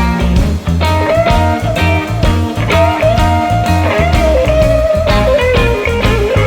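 Live electric blues-rock band playing: an electric guitar lead with long, bent, wavering notes over bass guitar and drums keeping a steady beat.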